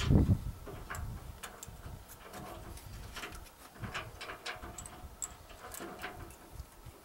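Steel chain links clinking and rattling in irregular small clicks as the chain is handled and pulled through its fitting, with a dull thump right at the start.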